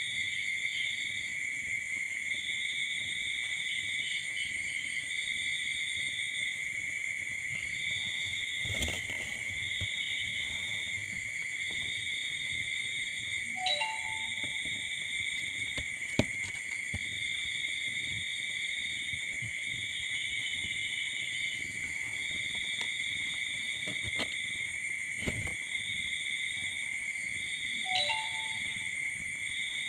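Insects chirring steadily, a constant high drone with a second, higher trill pulsing on and off about once a second. A kitten gives a brief squeak twice, about halfway through and near the end.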